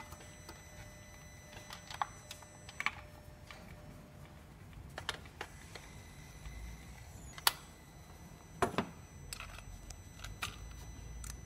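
Scattered light metallic clicks and clinks of hand tools on an engine: a compression tester's threaded adapter being handled at the spark plug holes, with a sharper click about seven and a half seconds in and a duller knock soon after.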